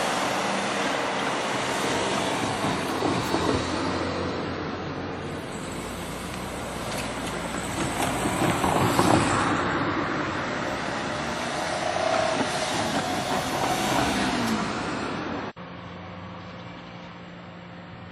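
Kintetsu electric train running over a level crossing, a loud rolling rumble that swells twice. It cuts off abruptly near the end, leaving a quieter steady hum.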